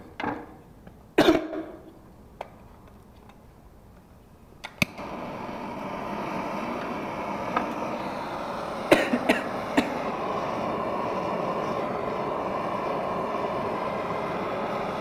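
A cough about a second in, then a hand-held propane torch lit with a click about five seconds in; its flame then hisses steadily, with a few sharp clicks a few seconds later.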